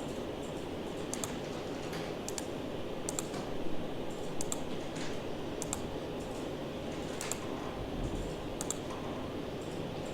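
Scattered clicks of a computer mouse and keyboard, irregular and about one a second, some in quick pairs, over steady background noise.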